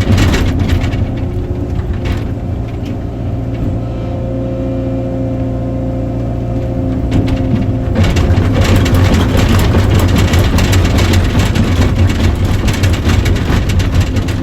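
Heavy excavator engine running steadily; about eight seconds in the sound turns louder and rougher, a dense crackling over the low engine rumble.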